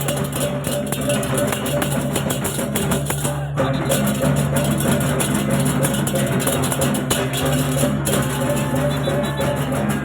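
Balinese parade music, a gamelan ensemble with drums, held gong-like tones and fast clattering cymbals, playing on continuously at full volume.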